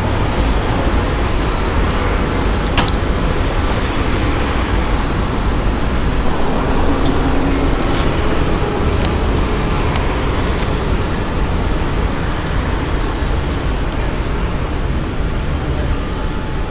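Steady roadside traffic noise, with a few short clicks partway through.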